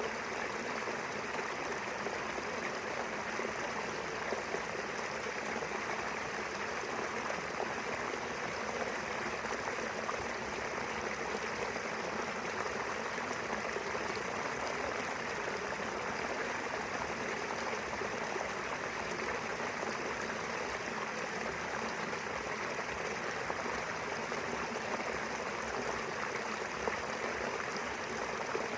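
Small river flowing steadily, a continuous even rush of running water.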